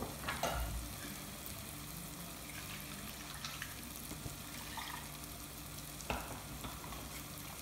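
Onion-tomato masala sizzling gently in a clay pot over the gas flame, a steady soft frying hiss. A faint knock sounds about half a second in and again near six seconds.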